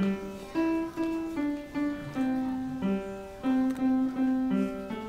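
Upright piano being played solo: a melody of single struck notes, one to two a second, some held and left ringing.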